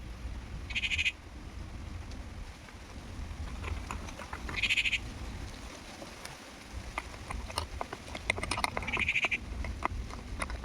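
Three short, pulsed animal calls a few seconds apart, over scattered small clicks and a steady low rumble.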